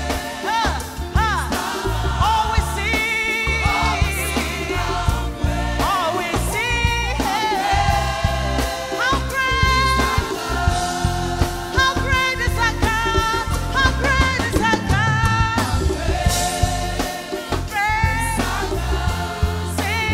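Live gospel music: a woman singing lead into a microphone with backing singers, over keyboard and drums with a steady beat.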